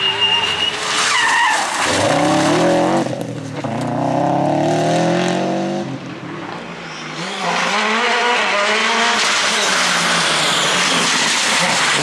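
Subaru WRX STI rally car's turbocharged boxer four accelerating hard, its revs climbing through a gear change at full throttle. After a short dip, a second rally car's engine runs at high revs amid tyre and gravel noise.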